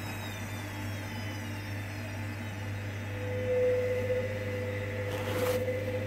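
Hoover Dynamic Next washing machine running as its cotton cycle moves from the cool-down into the intermediate spins: a steady low hum under a high motor whine that slowly falls in pitch. About three seconds in, a new steady whine starts, and a short rush of water and suds comes near the end.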